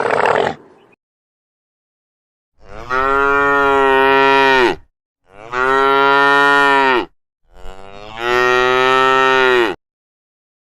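A cow mooing three times, each moo long and drawn out, about two seconds, with short pauses between. In the first second the tail of a rough growl fades out before the moos.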